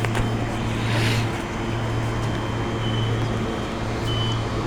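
NGR electric passenger train standing at the platform, its onboard equipment humming steadily, with a short hiss of air about a second in and a few brief, faint high tones later on.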